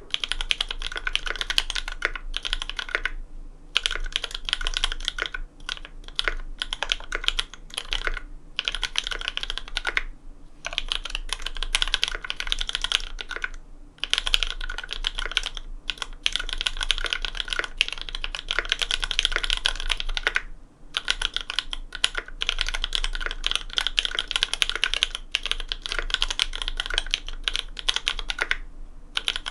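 Fast typing on a custom Cannonkeys Satisfaction 75 mechanical keyboard with an FR4 plate and lubed linear Cherry MX Black switches fitted with Kailh Cream stems, under GMK keycaps. Dense runs of keystroke clicks are broken by several brief pauses.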